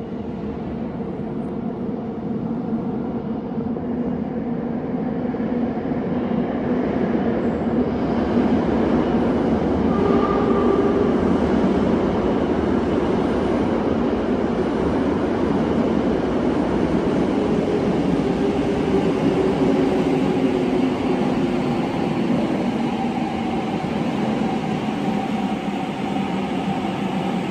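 Subway train running through an underground station. The rumble builds over the first several seconds and then holds, with a low motor whine that slowly shifts in pitch.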